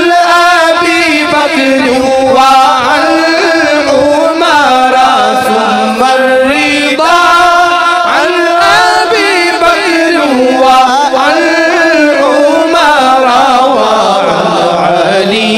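Arabic devotional chant (nasheed) sung by a single voice, drawn out in long, ornamented, wavering notes.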